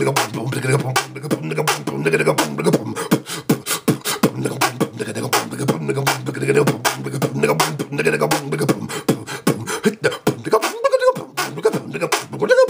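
A man beatboxing: rapid mouth-made kick, snare and hi-hat sounds over a steady low hummed tone. The low tone drops out about nine seconds in, and short pitched vocal notes join the beats near the end.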